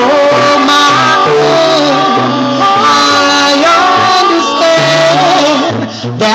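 Male a cappella group singing close harmony through microphones and a PA: held chords over a bass voice stepping between low notes. The sound dips briefly near the end, then picks up again.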